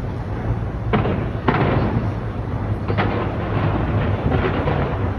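Aerial fireworks bursting in quick succession: a continuous rolling rumble of booms with sharper bangs about one, one and a half and three seconds in.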